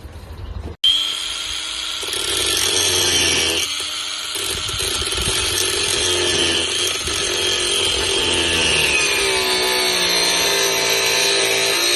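Angle grinder fitted with a grinding disc rather than a cutting disc, grinding through a 6-inch galvanised steel nail. It starts abruptly about a second in, then runs as a steady high whine whose pitch sags and recovers as the disc bears on the nail.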